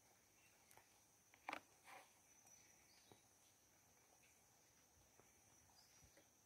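Near silence: a faint steady high drone of insects, broken by two brief faint sounds about one and a half and two seconds in.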